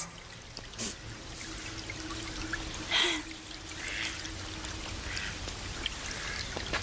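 Small forest brook trickling over a noisy bed, with two short splashy bursts about one and three seconds in.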